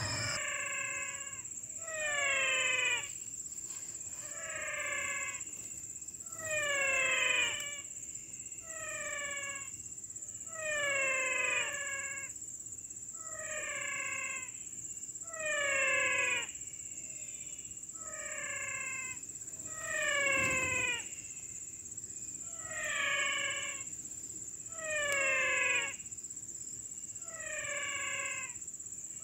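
An animal call, a short note that falls in pitch, repeated about every two and a half seconds, over a steady high-pitched insect hum.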